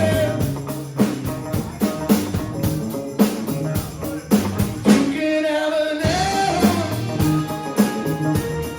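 Live rock band playing with a singer over drums, bass and guitar, the drums keeping a steady beat. About five seconds in, the bass and drums drop out for roughly a second under a held sung note, then the band comes back in.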